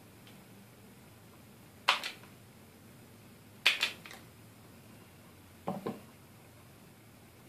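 Automatic wire stripper snapping three times as it strips the insulation off a wire: two sharp clicks about two seconds apart, then a duller double click.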